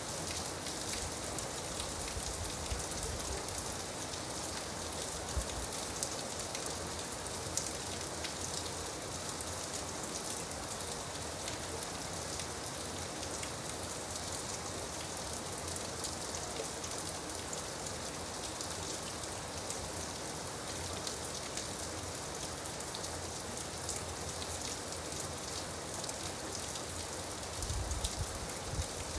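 Steady rain, an even hiss dotted with countless small drop ticks. A short low rumble comes near the end.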